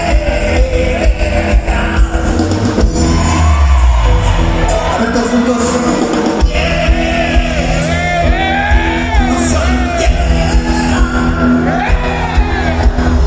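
Live band playing loud amplified music, with a singing voice over a steady bass line and drum beat.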